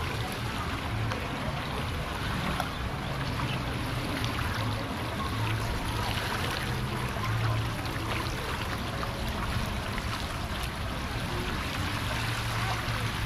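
Splash-pad fountain jets spraying and water running across the wet floor: a steady rushing hiss over a constant low rumble.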